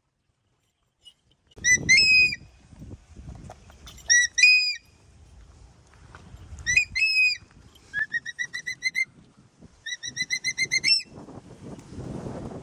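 A hawk-eagle calling. There are three high-pitched two-note calls about two and a half seconds apart, then two quick runs of short, slightly rising piping notes, the second run faster, about eight notes in a second.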